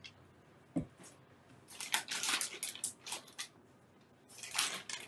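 Jars and containers being handled at a table: a soft thump just under a second in, then two spells of rustling and light knocking as jars are picked up and moved.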